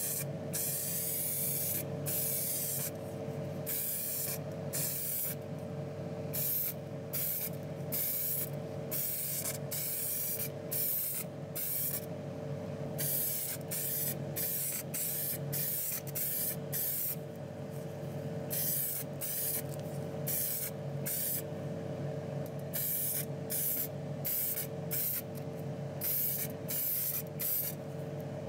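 Aerosol spray paint can hissing in many short bursts, each under a second and about a second apart, as small diecast metal parts are coated. A steady low hum runs underneath.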